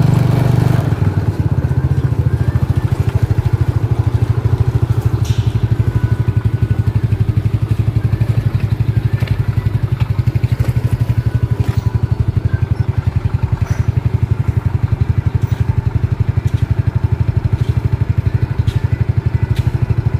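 An engine running steadily at an even speed with a fast, regular throb, a little louder for about the first second.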